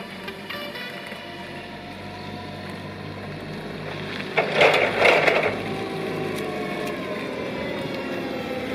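LPG forklift engine running as the forklift drives up, growing louder as it nears, with a short loud rush of noise about halfway through. The engine pitch drops slightly in the last few seconds as it slows.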